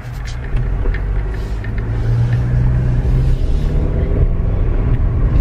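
Car engine and road noise heard from inside the cabin: a steady low rumble that gets louder about a second in and stays up.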